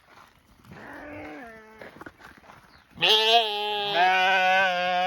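Dorper sheep bleating: a quieter bleat about a second in, then a long, loud bleat from about three seconds in.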